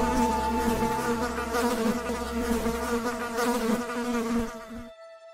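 Honeybees buzzing in flight, several at once, a dense humming drone that stops near the end.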